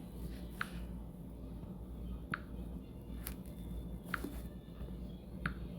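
About five faint, sharp clicks at uneven spacing over a low steady hum.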